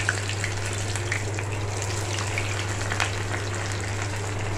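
Batter-coated cauliflower florets deep-frying in hot oil in a kadai: a steady sizzle with scattered crackles.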